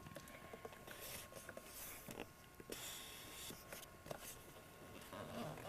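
Faint rustling, scuffing and small clicks, with a few short hissy bursts, over a faint steady tone.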